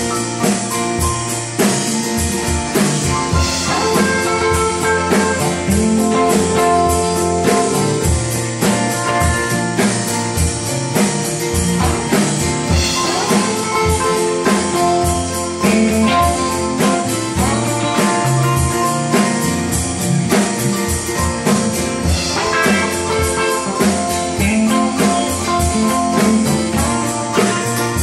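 Instrumental band music with no singing: a bluesy guitar lead over a steady drum kit beat.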